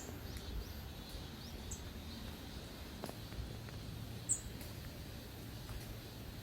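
Faint outdoor ambience with two brief, high bird chirps, one a little under two seconds in and one just after four seconds.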